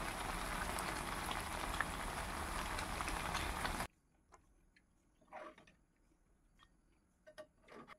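Chicken and potato curry bubbling steadily as it simmers in a metal pot on the stove, cutting off abruptly about four seconds in. Then a few faint taps as the curry is served into a glass bowl.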